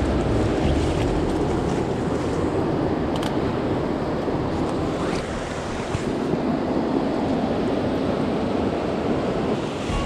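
Fast river rapids rushing, a steady, loud noise of water, with wind on the microphone. A few faint clicks of steps through brush and twigs.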